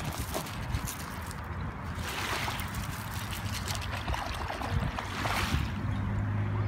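Water sloshing and splashing around a corgi as she wades out and starts to swim, a steady wash that swells twice.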